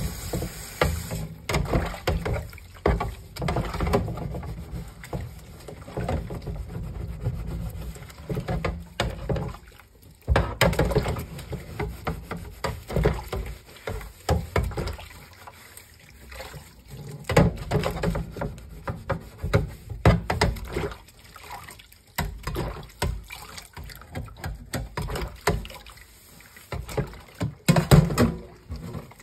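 Hands scrubbing a plastic air fryer basket and its crisper plate with a sponge in soapy water in a stainless-steel sink, water sloshing and splashing in uneven bursts.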